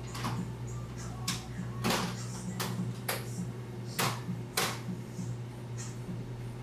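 A series of sharp clicks and knocks, about seven spread irregularly over the first five seconds, over a steady low hum.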